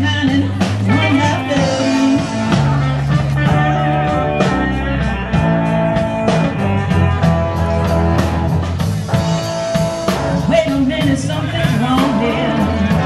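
Blues band playing live, with a steady beat and some singing.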